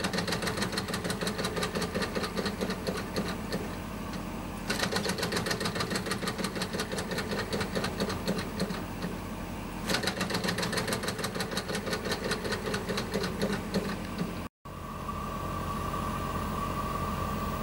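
Home-built Stirling engine with a four-bar link drive running with a fast, rough rhythmic clatter from its drive, a sign that the unbalanced drive needs a balancing system. About fifteen seconds in the clatter gives way to a steady hum with a high tone.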